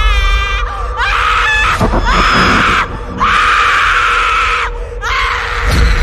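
Horror sound-effect screaming: about five screams in a row with short breaks, the first held and wavering, the later ones harsh and raspy, over a low steady drone. A low thump near the end.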